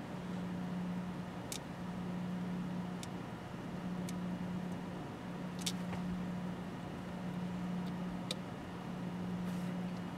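A steady low hum that swells and fades every couple of seconds, with a few small sharp clicks of watchmaking tools (tweezers, screwdrivers) being handled and set down on the bench mat.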